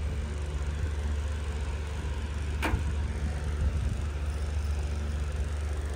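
Steady low hum of a washing machine running, with the soft rustle of a comforter being handled inside a dryer drum. A single sharp click a little under three seconds in.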